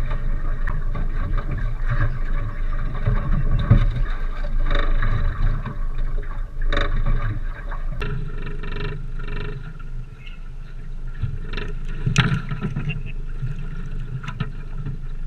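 Low, unsteady rumble around a small boat with irregular knocks and clatter from fish and fishing gear being handled on deck; the sound changes abruptly about halfway through.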